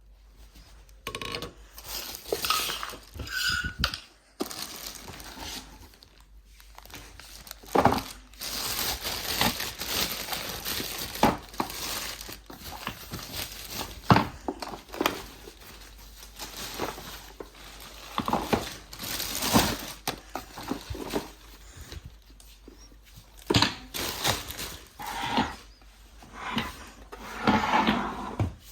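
Unpacking a boxed vacuum cleaner by hand: cardboard and plastic packaging rustling and crinkling, with plastic parts knocking and clattering at irregular moments.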